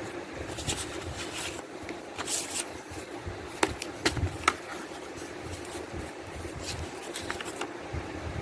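Hands handling a plastic disc case and its paper insert: scattered light clicks and brief rustling or scraping, with a few sharper clicks in the middle.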